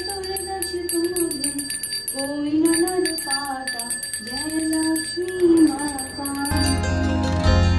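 Devotional aarti music: a wavering sung melody over a fast, steady jingling of small bells. About six and a half seconds in it changes to a different, fuller instrumental piece.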